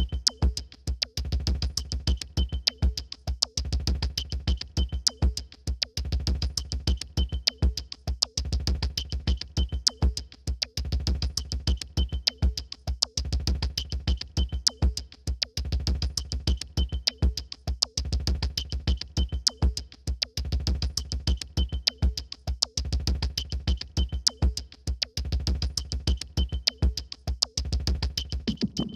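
Electronic music with a fast, dense drum-machine beat of clicks over a pulsing low bass, and a short high blip recurring about once a second.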